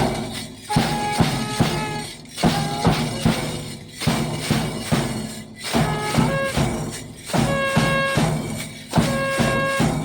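Music with a quick, steady percussion beat and short bright pitched notes repeating in phrases of about two seconds; it cuts off suddenly at the end.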